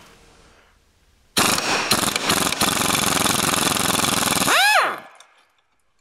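Impact wrench hammering to undo a rear transmission mount bolt: a loud, steady rattle for about three seconds starting a second and a half in. It ends in a brief rising-and-falling whine as the wrench lets off.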